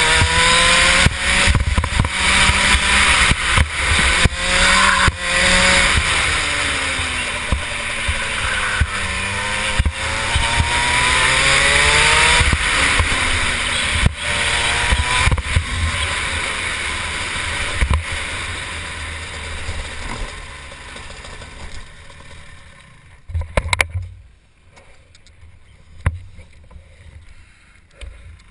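Rotax 125 two-stroke kart engine revving up and down through the corners, its note broken by repeated sharp pops and misfires at high revs: a lean pop from the engine running too lean. After about twenty seconds the engine note dies away, with a couple of knocks near the end.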